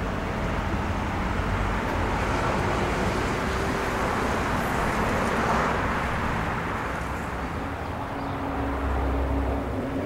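Steady outdoor background noise: an even rushing hiss over a low rumble, swelling a little around the middle and easing off after.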